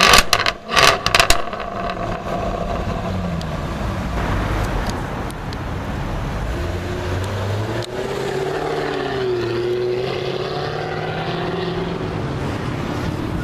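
Jaguar F-Type's supercharged V8 exhaust: a few sharp blips with crackles in the first second or so, then the car running and pulling away, its engine note rising and falling.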